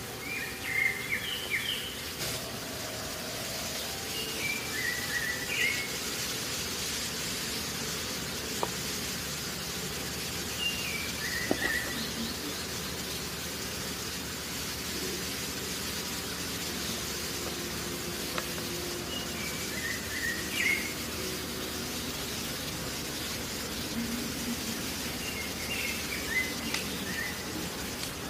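A bird chirping in short phrases every five to nine seconds over a steady background hiss, with a few faint knocks in between.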